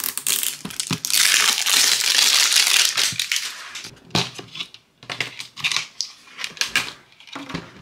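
Thin clear plastic film crinkling as it is peeled off a toy's hard plastic dome: a dense, continuous rustle for about the first three seconds, then scattered crackles.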